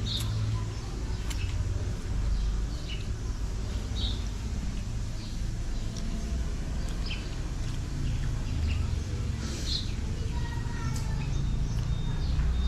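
Birds chirping in short, scattered calls every second or two over a steady low rumble of traffic.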